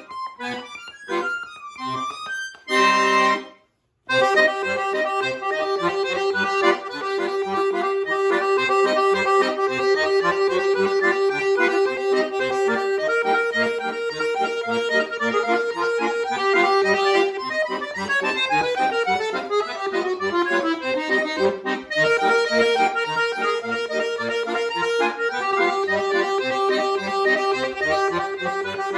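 Chromatic button accordion played solo: short detached chords, a brief pause, then a melody over held notes with fast runs, one of them falling in pitch about two-thirds of the way through.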